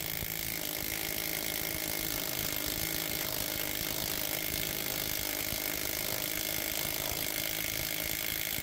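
Seyvum cordless brushless impact wrench on its low setting, running in reverse and hammering steadily and rapidly against a lug nut torqued to 120 foot-pounds, trying to break it loose.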